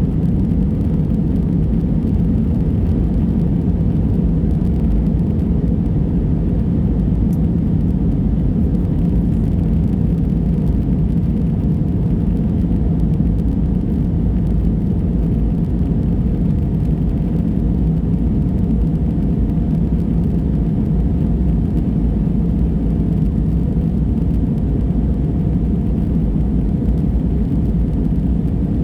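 Steady engine and airflow rumble inside an Airbus A320 airliner's cabin in flight, with a faint steady whine above the low drone.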